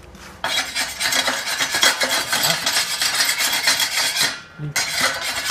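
Metal scraping and rubbing on a freshly plasma-cut steel piece, cleaning off the slag. It starts about half a second in, pauses briefly near the end, then starts again.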